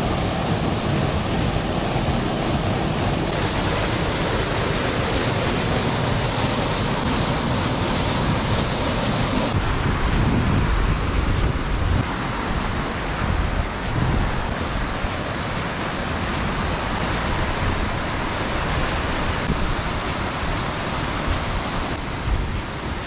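Rushing water of a small waterfall and a shallow rocky mountain stream: a steady, loud rush that changes in tone a few times along the way.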